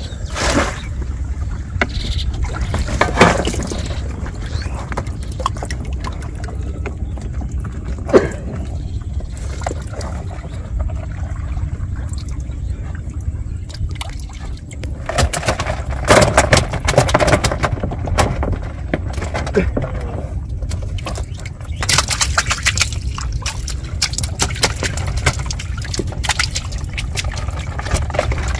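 Water splashing and trickling off a wet woven-bamboo shrimp trap as it is hauled out of the river and handled in the boat, in spells of rushing water. A few sharp knocks sound over a steady low rumble.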